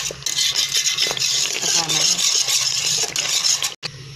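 Wire whisk stirring custard in a pot, continuous rapid scraping strokes as the custard cooks; it cuts off suddenly a little before the end.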